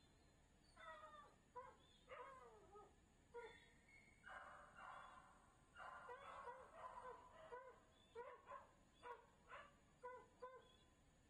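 A young black dog whining and yipping in a string of short pitched calls, with a longer run of whines in the middle, then short yips about twice a second near the end.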